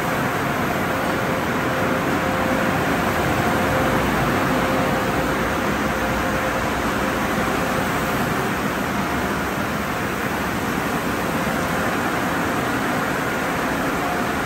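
Automatic car wash tunnel running: a steady rush of spraying water and spinning cloth brushes working over a car, with a faint steady machine tone underneath.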